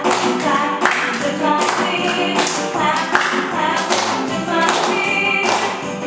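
Upbeat dance music with a singer over a steady, regular beat.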